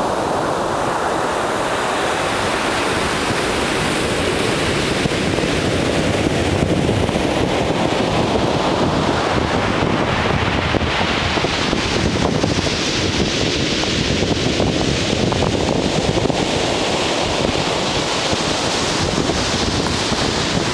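Ocean surf: a continuous wash of breaking waves that swells about midway and again near the end, with wind buffeting the microphone.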